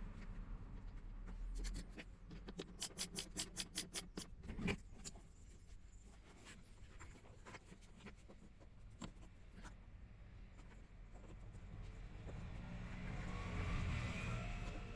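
Handling and tool noises while the blower fan motor is fitted back into place. About three seconds in there is a quick, even run of clicks, followed by a knock. After that come scattered small clicks and rubbing.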